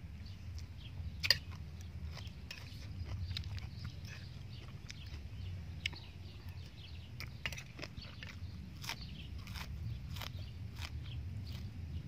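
A person eating seafood salad: chewing and mouth sounds with scattered short clicks, one sharper click about a second in, over a low steady rumble.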